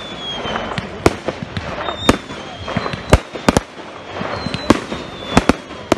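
Fireworks going off: about a dozen sharp bangs at irregular spacing from rockets and bursting shells, with thin whistles and crackling in between.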